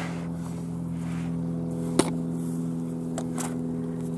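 A steady low mechanical hum holding a few fixed pitches, with a single sharp click about two seconds in.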